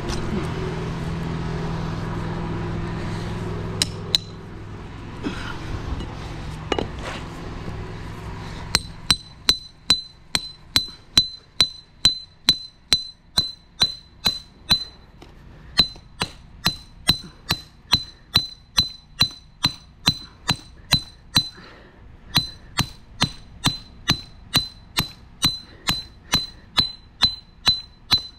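Engine running steadily, dropping away after about eight seconds. Then comes a long run of sharp hammer strikes on metal, about two a second, each one ringing, with two brief pauses.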